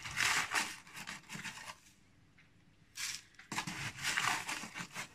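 Spoonfuls of salt being scooped and tipped into a pot of dry onion skins: gritty scraping and rustling in a few bursts, with a short pause near the middle.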